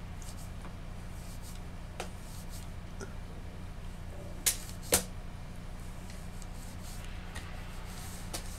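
Hands working a clay sculpture: faint light rustling, with two sharp clicks about half a second apart midway, over a steady low hum.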